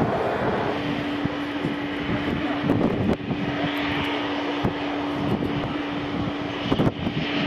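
Distant Airbus A340-300's four CFM56 jet engines idling on the ground: a steady rushing hum with a single low held tone underneath, and a few brief knocks.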